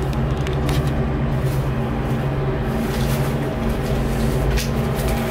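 Steady low hum inside a moving cable car cabin as it travels along its cable, with a few light clicks or creaks near the end.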